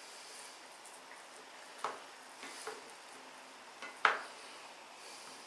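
A table knife spreading soft sausage spread on a slice of pumpernickel: quiet scraping with a few sharp clicks of the knife, the loudest about four seconds in.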